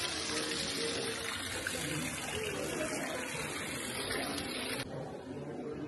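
Steady rush of running water, with faint voices of people underneath. The water sound cuts off abruptly about five seconds in.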